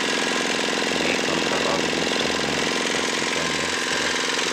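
Dongfeng single-cylinder diesel engine running steadily with a fast, even chugging beat. It has been freshly repaired for burning oil.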